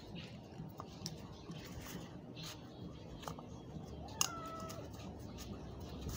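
Small clicks and rubbing of a plastic diesel fuel filter cartridge and housing parts being handled in rubber gloves. About four seconds in, a sharp click is followed by a short pitched squeak lasting about half a second.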